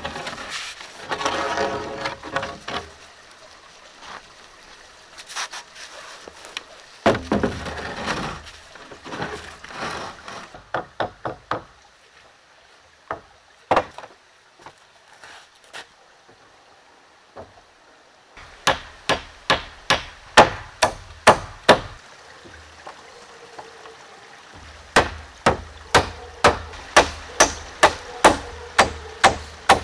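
Hammer driving nails into wooden framing boards, in several runs of sharp blows, about three a second. Between the runs, wooden boards scrape and knock as they are moved into place.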